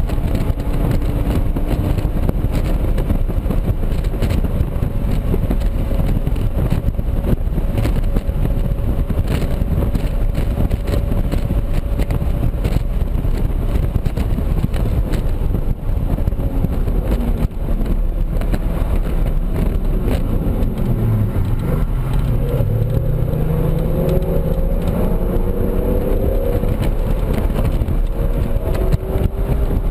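2007 BMW Z4 M Coupe's 3.2-litre straight-six, fitted with an aFe intake, heard from inside the cabin under heavy road and wind rumble: held at high revs at full throttle, then lifting for hard braking about halfway, and revving up again in rising sweeps through the lower gears in the last third.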